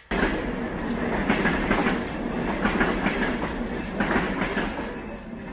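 A shower running river water, the spray rushing and splashing steadily after switching on abruptly at the very start.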